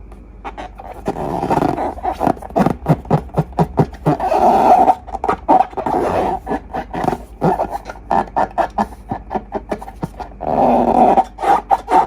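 Slime being squeezed and squished by hand: rapid, irregular sticky pops and squelches, with a few longer wet squelching stretches.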